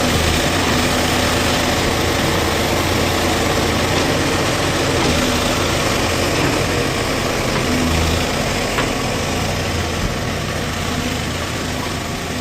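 Backhoe loader's diesel engine running steadily at a low, even speed.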